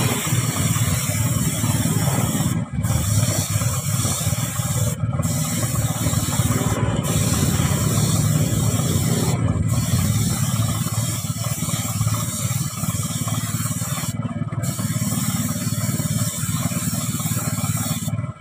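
Gravity-feed paint spray gun spraying car paint: a steady hiss of air and paint, cut off briefly by trigger releases five times and stopping near the end. A steady low hum runs underneath.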